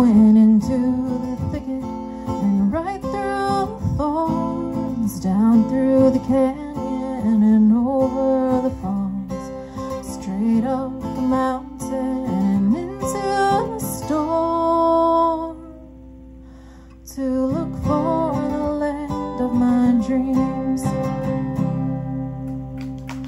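Acoustic guitar music with a gliding melody line over it; it nearly drops out for about a second and a half about two-thirds of the way through, then comes back.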